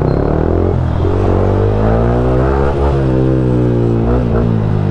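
Yamaha MT-15's 155 cc single-cylinder engine under way: the revs climb for about two seconds as the bike accelerates, then fall away as the rider eases off.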